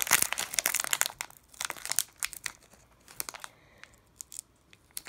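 Foil Pokémon booster pack wrapper being torn open and handled: a dense crackling, crinkling tear in the first second or so, then sparser scattered crinkles.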